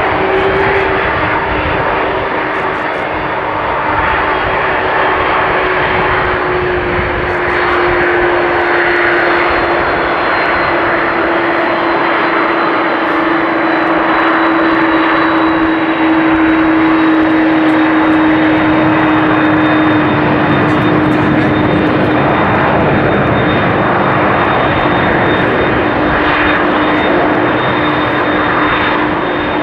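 McDonnell Douglas MD-11F freighter's jet engines running, a loud steady rush with a whine that slowly falls in pitch.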